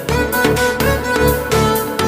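Background music with a steady beat and a sustained melody line, violin-like in tone.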